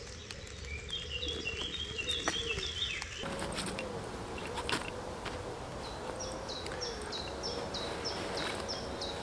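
Woodland birdsong: a quick run of high chirps in the first few seconds, then a bird repeating a short high call about twice a second. Faint clicks and rustles of kit being handled run underneath.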